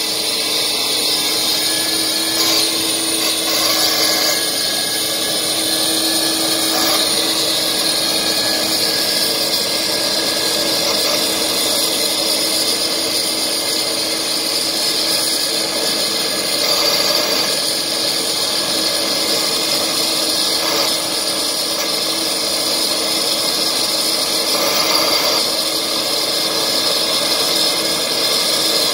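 Steady mechanical whine and hiss from a Lockheed C-5M Super Galaxy's ground-running systems while its aft cargo ramp lowers, with several steady tones that hold without a break.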